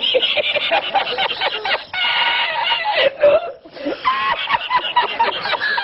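A man laughing uncontrollably: high-pitched, breathless laughter in quick repeated pulses, with short gasps between bursts.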